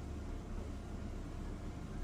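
Steady low hum with faint hiss, background noise without any distinct clicks or events.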